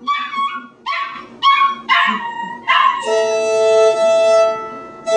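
Akita puppy giving short, high yipping howls, one after another. About three seconds in, a fiddle takes over, bowing two notes held together in one long, steady chord.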